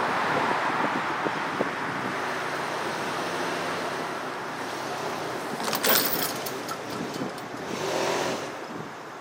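Pickup truck engine running under load while it pulls out a tree stump, with wind on the microphone. A quick cluster of sharp knocks comes about six seconds in.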